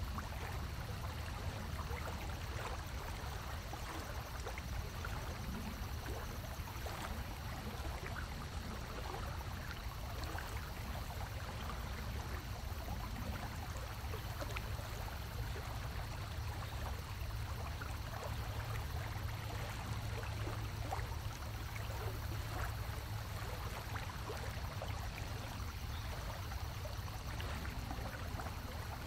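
Aquarium water circulation: water trickling and gurgling over a steady low hum, with faint scattered crackles.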